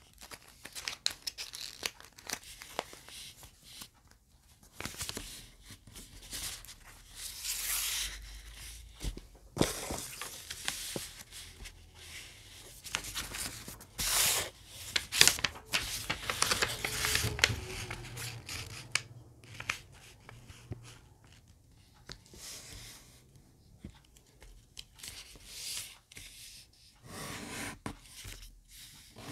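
Origami paper being handled and folded: irregular rustling and crinkling, with a few sharper, louder swipes as folds are pressed flat.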